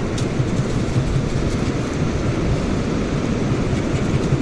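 Steady low rumble of wind buffeting the microphone over ocean surf, with a faint click or two.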